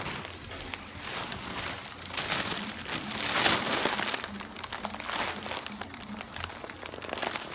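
Thin black plastic bag crinkling and rustling as it is squeezed against the mouth while someone sucks air out of it, the crinkling loudest from about two to four seconds in.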